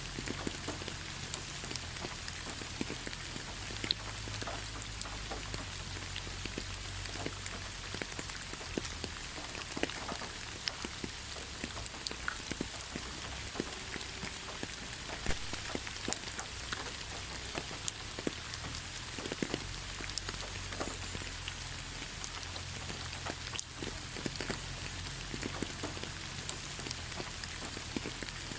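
Gentle rain falling steadily, with many individual drops ticking on a surface at irregular moments.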